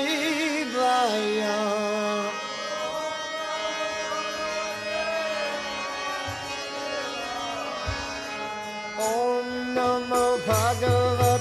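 Background music: a held drone under a slow, wavering melody line, with drum strikes and a low pulse coming in about nine seconds in.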